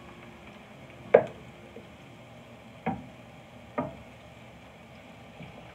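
Raw chicken pieces being tipped from a plate into a frying pan of onions and garlic: three sharp knocks, the loudest about a second in, over a faint sizzle of the oil.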